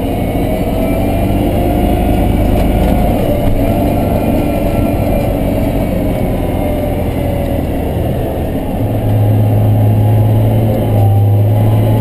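Cat Challenger MT765C track tractor's diesel engine running steadily under heavy load, heard from inside the cab as it pulls a full grain cart up a hill. A deeper, stronger hum comes in about nine seconds in.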